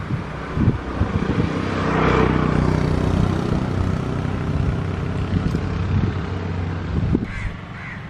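Street traffic: a motor vehicle's engine runs steadily close by and swells louder about two seconds in as it passes.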